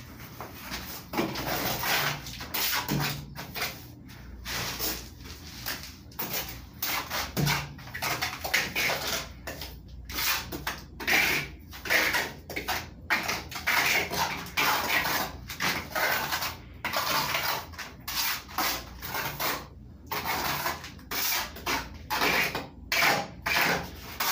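Steel hand trowel scraping and spreading wet cement plaster over a concrete block wall, in repeated short, irregular strokes.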